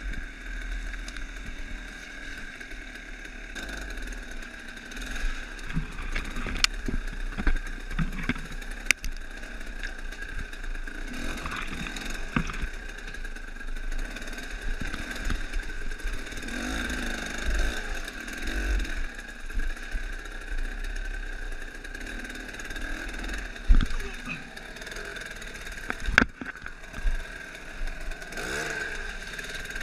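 Dirt bike engine running with the throttle rising and falling as it climbs a rocky trail, with several sharp knocks from the bike striking rocks.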